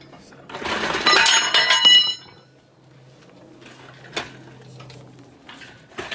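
Metal objects clattering together with a bright metallic ringing for about a second and a half, then a few faint clicks over a steady low hum.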